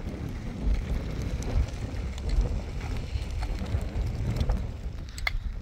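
Gusty wind rumbling on the microphone, with scattered light clicks of a short-handled hoe scraping and chopping into stony soil and a couple of sharper knocks near the end.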